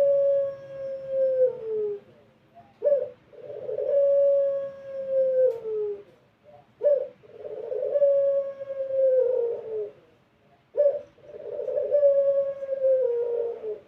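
Puter pelung, a domestic ringneck dove kept for its long coo, cooing repeatedly. Each coo is a short sharp note followed by a long, steady held tone that slides down at the end. One coo is already sounding at the start, and three more follow about four seconds apart.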